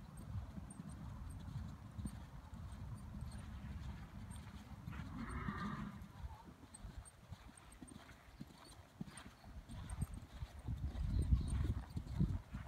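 Hoofbeats of a grey Arabian mare trotting on arena sand: dull, regular thuds that grow louder near the end as she comes close. A brief higher sound breaks in about five seconds in.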